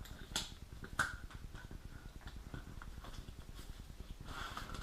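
Small clicks and light rustling of wires being handled while routing a car wiring harness, with two sharper clicks, the louder about a second in.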